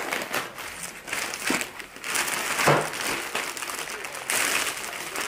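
Packaging being handled, crinkling and rustling in irregular bursts with a small peak about two and a half seconds in.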